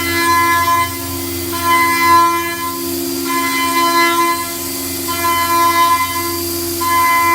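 CNC milling machine with an HSK-E25 high-speed spindle cutting: a steady spindle whine under a higher cutting whistle that comes and goes about every second and a half as the tool moves in and out of the cut.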